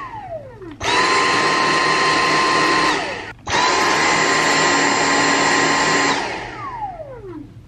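Cordless stick vacuum switched on and off in short bursts: its motor runs with a steady whine for about two seconds, cuts out briefly, runs again for about two and a half seconds, then winds down with a falling whine near the end. It opens on the falling whine of a previous burst winding down.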